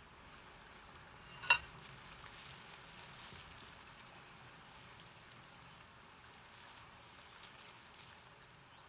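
Faint woodland ambience: a soft hiss with a short high chirp repeating about once a second, and one sharp click or snap about a second and a half in.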